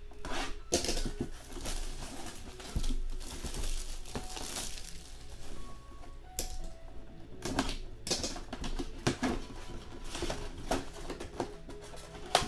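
Hands handling and opening a cardboard mini-helmet box and its paper packing: irregular rustling, sliding and tapping of cardboard and paper, with faint background music.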